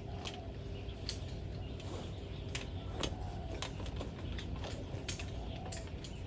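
Light clicks and small knocks, about one a second, as a metal mesh campfire table is packed into a canvas tote bag, over a steady low outdoor background.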